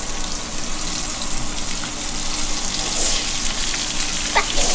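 Cornmeal-and-flour-dredged tautog fillets frying in hot grapeseed oil in a cast-iron skillet: a steady crackling sizzle that brightens about three seconds in as the second fillet is laid into the oil.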